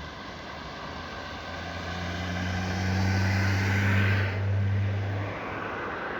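Helsinki metro train running, a low hum with a hiss above it that builds to its loudest about three to four seconds in. The hiss then drops off suddenly and the hum stops about a second later.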